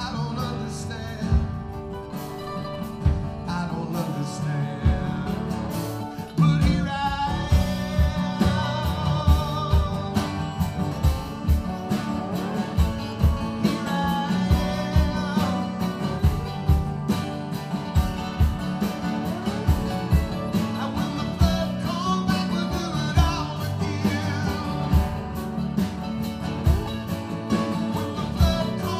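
Live acoustic blues band: acoustic guitar strummed hard and a mandolin picking over a steady drum beat, with a man singing. The music grows louder about six and a half seconds in.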